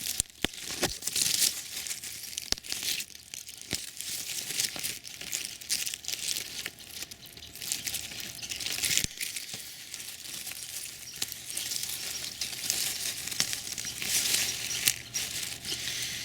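Dry rustling and crackling with many scattered sharp clicks, like plant matter and soil being handled close to the microphone.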